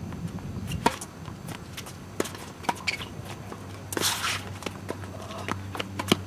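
Tennis ball popping off rackets and the hard court during a doubles point: a serve about a second in, then sharp pops at irregular intervals as the rally goes on.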